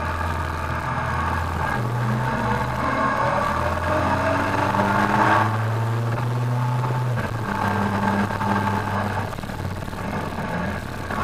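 Kawasaki ZRX1200R's inline-four engine under way on the road. It rises in pitch for a few seconds as it pulls, drops sharply a little before halfway through, then runs on more steadily.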